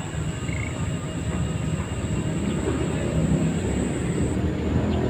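Low rumble of a motor vehicle running nearby, growing louder toward the end. A thin, steady high whine stops about four seconds in.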